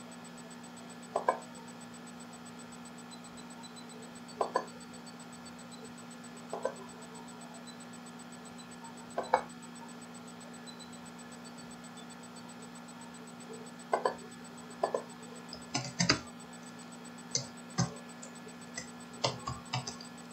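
Scattered clicks of a computer mouse and keyboard keys, some single and some in quick pairs. They come a few seconds apart at first and bunch together near the end, over a steady low electrical hum.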